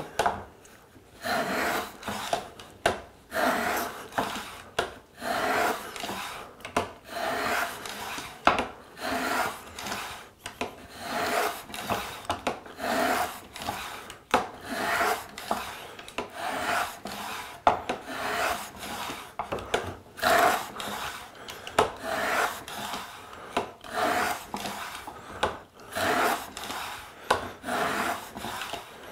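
Core box plane being pushed back and forth along a half-round groove in a wooden block, about one stroke a second. Each pass takes off a shaving with a short scraping cut.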